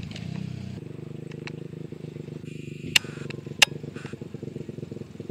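Dirt bike engine running steadily at a constant pitch. Two sharp clicks come about three seconds in, roughly half a second apart.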